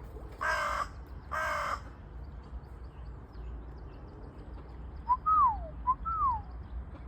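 A corvid gives two harsh caws in quick succession, then a two-part whistle (a short note and a long falling glide) comes twice about four seconds later, over a steady low background rumble.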